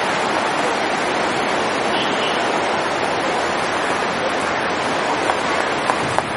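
Steady rushing noise, even and unbroken, with a few faint ticks near the end.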